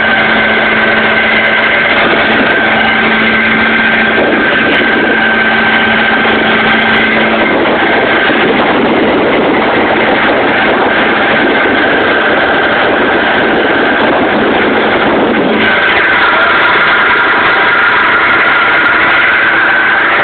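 Old 20 hp Evinrude two-stroke outboard running steadily with the boat under way, water rushing along the fiberglass hull. From about 8 to 15 seconds in, a louder rush of water partly covers the engine note, which then comes back clearly.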